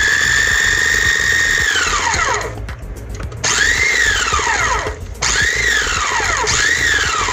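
Small electric food chopper chopping bread and butter pickles in their juice. Its motor runs with a high whine for about two seconds, then winds down. It is then pulsed three times, each pulse a short whine that rises and falls away.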